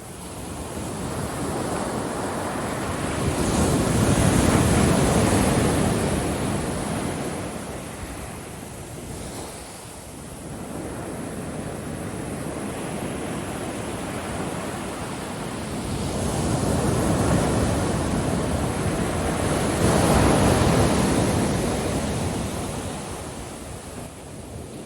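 Ocean surf: waves rolling in and breaking on a beach, the rush of water swelling and fading away. The biggest surges come about four seconds in and again past the middle, peaking around twenty seconds in.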